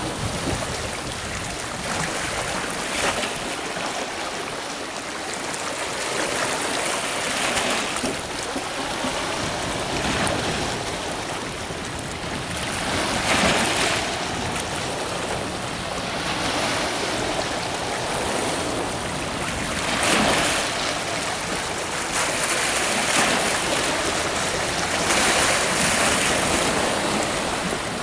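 Sea waves washing onto the shore, the wash swelling and fading every few seconds.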